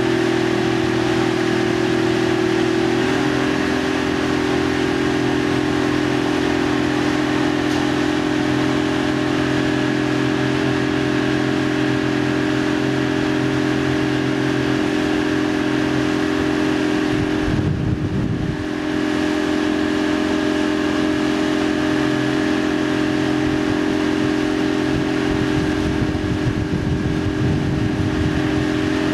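Motorboat engine running steadily at speed while towing a rider, its note dropping slightly about three seconds in. A brief low rumble just past halfway.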